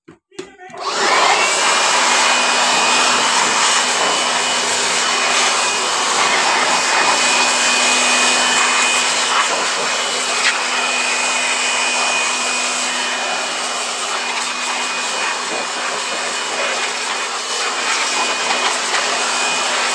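Handheld electric air blower starts about a second in and runs steadily, blowing dust out of an open power amplifier's chassis: a rush of air with a steady high whine over it.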